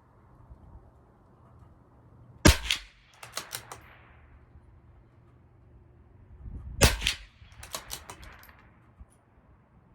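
Two shots from a CZ 457 LRP bolt-action .22 LR rifle firing SK High Velocity Match, about four seconds apart. Each shot is followed within a second by a quick run of clicks as the bolt is worked.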